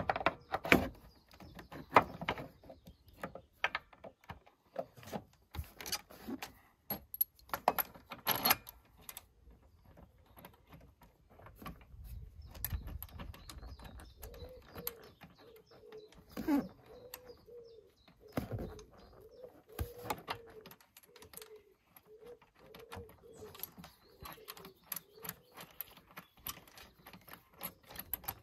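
Metal clinks and knocks as a new upper torque mount and its bolts and nuts are handled and fitted into an engine bay by hand. From about halfway through, a pigeon coos repeatedly in the background.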